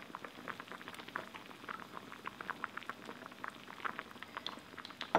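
Cheonggukjang stew boiling at a rolling boil in an earthenware ttukbaegi: a steady run of small, irregular bubbling pops. There is one louder knock right at the end.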